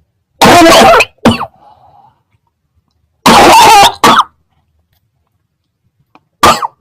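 A person coughing loudly in three bouts: a cough with a shorter one right after it about half a second in, another such pair about three seconds in, and a single short cough near the end.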